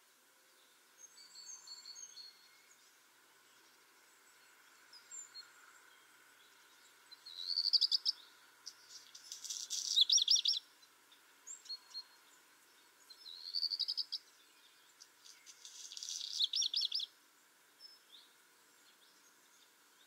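Black redstart singing two song phrases, each a short high rising trill followed by a scratchy, crackling stretch, with a few faint high call notes before the first.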